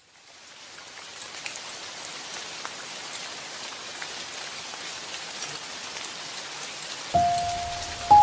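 Metal spoon mixing a wet mash of tofu, vegetables and egg in a glass bowl: a steady crackly hiss that fades in at the start, dotted with light clicks. About seven seconds in a held musical note comes in loudly, joined near the end by a higher one.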